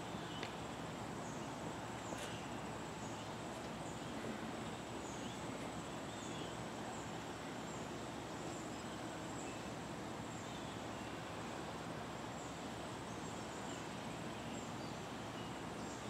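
Steady outdoor background noise with faint, short high-pitched chirps recurring every second or two, and a couple of faint clicks early on. There is no camel call.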